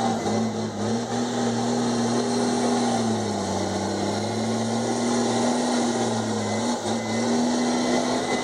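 Komatsu D51EX bulldozer's diesel engine running steadily under load; its pitch sags briefly about halfway through, then picks back up.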